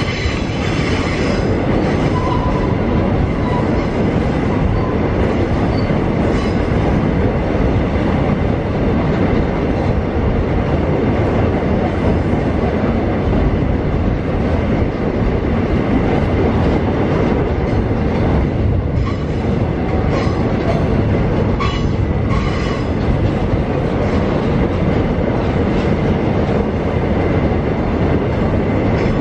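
Empty open-top steel freight wagons rolling past at close range: a loud, steady rumble of wheels on rail with rhythmic clacking over the rail joints. Brief high-pitched wheel squeals come at the start and again about twenty-two seconds in.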